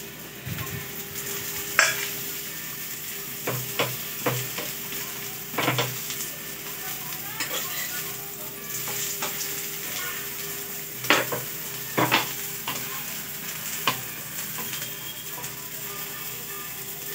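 Onion paratha sizzling in oil on a flat tawa, a steady frying hiss. Sharp knocks of a utensil against the pan come several times, the loudest about eleven and twelve seconds in.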